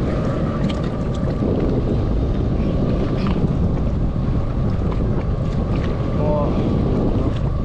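Wind buffeting the microphone and choppy sea water slapping against a jet ski, over a steady low rumble.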